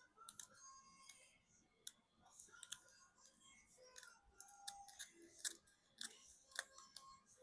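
Faint, irregular clicks and short scratches of pointed metal tweezers scraping and picking at the battery adhesive inside an opened iPhone, with a slightly louder click about five and a half seconds in.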